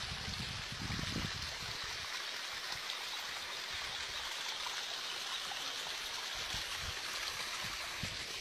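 Waterfall water rushing in a steady hiss, with a few low rumbles in the first second or so.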